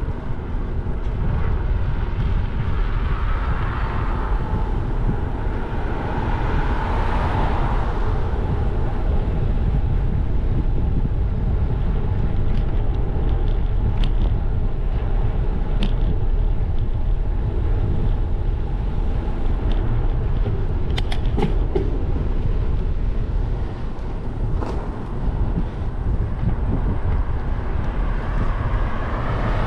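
Wind buffeting the GoPro Hero 12's microphone on a moving bicycle, a steady low rumble with road noise under it. A few sharp clicks sound midway, and a car approaching in the other lane grows louder near the end.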